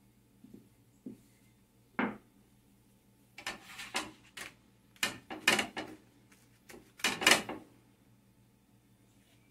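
Kitchen clatter while cooking flour tortillas: knocks of a wooden rolling pin on the counter and a spatula scraping and knocking on a griddle as a tortilla is flipped. There are a few light knocks, a sharp one about two seconds in, then bursts of clatter, loudest in the second half.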